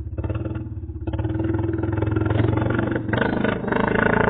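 Vehicle engine running with a steady low pulse, growing louder about a second in.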